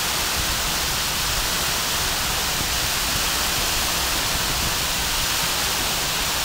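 Waterfall: water pouring and splashing in a loud, steady rush.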